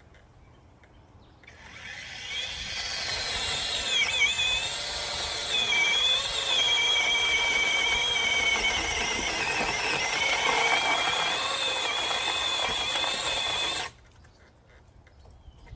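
Chainsaw running and cutting a tree branch: a high whine that sags in pitch several times as the chain bites, then stops suddenly near the end.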